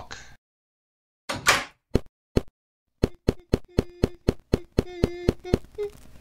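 A door swinging shut and clicking closed, then footsteps at a quick even pace, about four a second, for some two and a half seconds.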